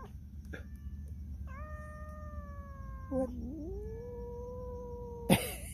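Cats caterwauling in a territorial standoff: two long, drawn-out yowls, the first held and falling slightly, the second lower, wavering and then rising before it levels off. Near the end a sudden, sharp, hiss-like burst.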